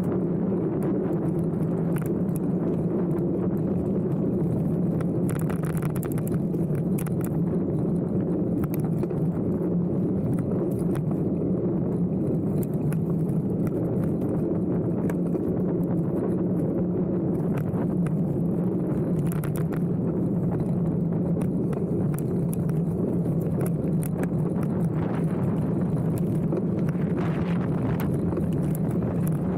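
Mountain bike ridden over a dirt and gravel track: steady tyre rumble with a low hum, and the bike clattering over bumps.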